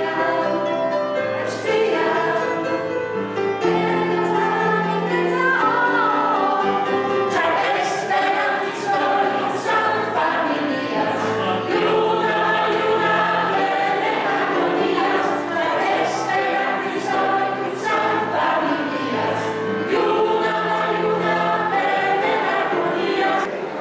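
A small mixed choir of young singers, women and men, singing a song together in several voices over a low line. A sharp beat comes about once a second from about a third of the way in.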